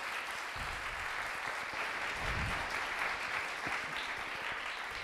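Audience applauding, a dense even clapping.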